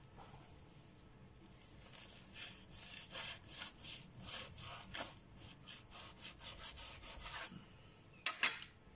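Chef's knife sawing back and forth through a cling-film-wrapped club sandwich on a bamboo cutting board: a faint run of rasping strokes through the bread and plastic wrap. Just after 8 s comes a short clatter as the knife is set down on a plate.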